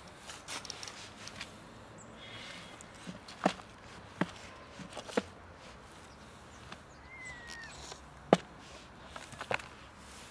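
Footsteps on dry leaf litter, with several sharp separate clicks or snaps spread through, the loudest a little past eight seconds in, and one brief high chirp about seven seconds in.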